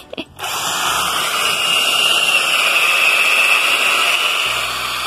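Cordless drill boring a pocket hole through a Trend pocket-hole jig into a timber upright. It runs steadily at speed, starting about half a second in after a couple of clicks.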